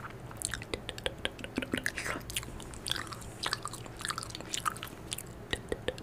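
Close-miked ASMR mouth sounds: wet clicks, smacks and pretend chewing and biting right at a condenser microphone, coming in quick, irregular succession, as if eating the listener's negative energy.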